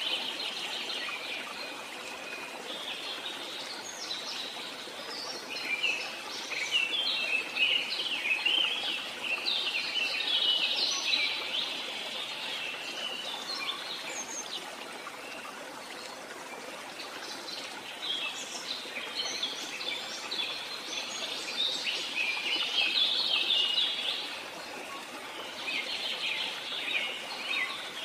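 Small birds chirping and twittering in spells over a steady hiss, like a nature ambience.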